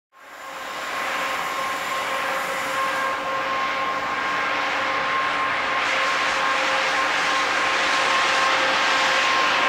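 Freight trains passing close by: a steady rolling rush of wagons on the rails with a steady whine over it, as an Aurizon electric locomotive hauling loaded coal wagons comes through. The sound fades in over the first second.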